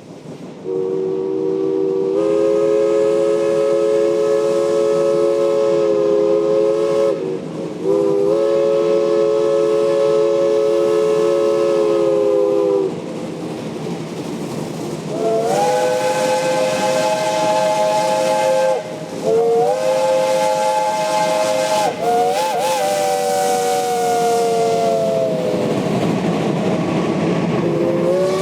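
Steam locomotive chime whistles blowing long multi-note blasts: a lower chord held for several seconds with one short break, then after a pause a higher-pitched chord in several blasts that sags in pitch as it dies away. A steady steam hiss runs underneath.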